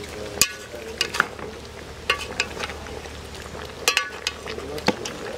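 Metal ladle scraping and clinking against the side of a metal cooking pot as chicken pieces are stirred, with a soft sizzle of frying underneath. The clinks come irregularly, about seven of them, a couple ringing briefly.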